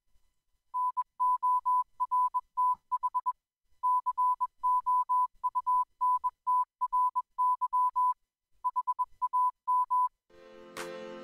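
Morse code: a single steady beep tone keyed in short and long dots and dashes, with brief pauses between letter groups. Music starts just before the end.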